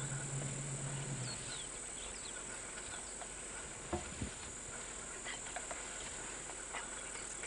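Quiet bush ambience: scattered short bird chirps and insect sounds over a steady background hiss, with a few soft clicks near the middle. A low steady hum stops about a second and a half in.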